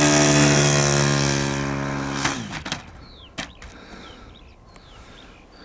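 Radio-controlled warbird's model engine running loud and steady as the plane rolls down the runway, its pitch sinking slightly before it fades out about two seconds in. A few short, high, falling chirps from a bird follow in the quieter part.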